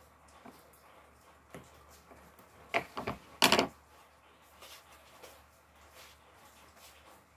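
A pair of scissors set down on a hard stone tabletop: a few sharp knocks and then a short, louder clatter about three seconds in, with faint room noise around it.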